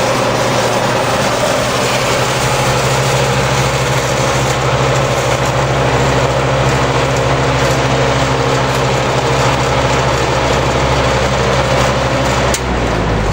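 Late-1950s Montgomery Ward Tru-Cold four-blade box fan, made by Lasko, running with a steady electric motor hum and the rush of its blades; the owner thinks it could use some oil. A sharp click comes near the end, after which the sound changes and falls away.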